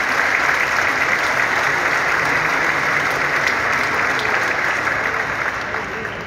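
Audience applauding: steady, dense clapping that thins out and fades over the last second or so.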